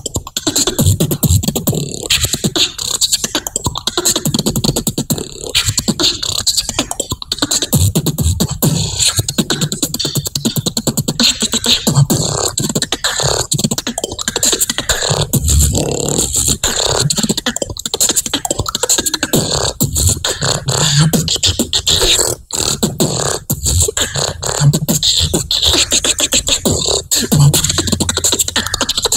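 Solo beatboxing into a handheld microphone: fast, dense percussive hits and clicks over short low bass notes, running on without a break.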